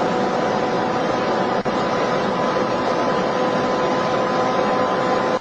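A car driving steadily: constant road and wind noise with a steady engine hum, and a faint click about a second and a half in.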